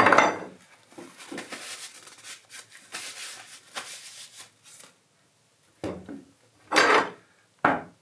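Steel SDS-plus masonry drill bits clinking and rattling against each other and the wooden tabletop as they are handled and sorted. There are scattered light clicks, then a few louder clatters in the last few seconds.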